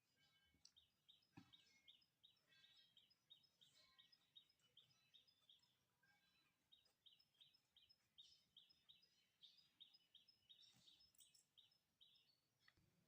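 Faint bird chirping: short, high notes repeated steadily, about two to three a second.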